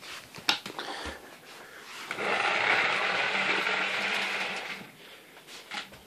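Mains cable being pulled out of a Numatic Henry vacuum cleaner's cord reel: a few knocks, then a steady noisy run of about three seconds.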